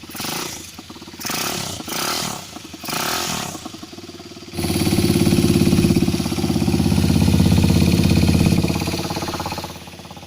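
Kasinski Mirage 150 motorcycle engine and exhaust: idling, four quick throttle blips in the first few seconds, then revs held up for about five seconds before dropping back to idle near the end.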